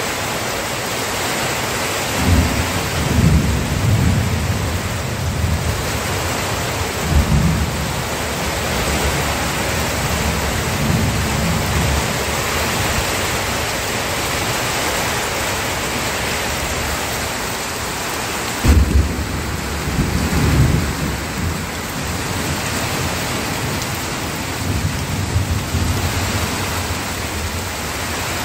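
Steady rain with thunder rumbling low about five times, each roll lasting a second or more.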